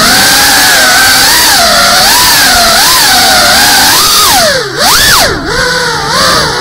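FPV quadcopter's brushless motors whining loudly, picked up by its onboard camera, the pitch wavering up and down with the throttle. A little past halfway the pitch drops sharply and surges back up.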